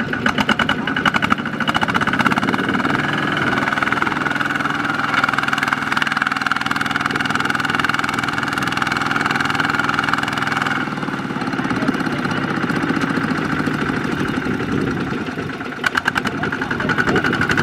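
Kubota ZT155 single-cylinder diesel engine of a walking tractor running steadily under load as its wheels churn in mud; the engine note drops about two-thirds of the way through.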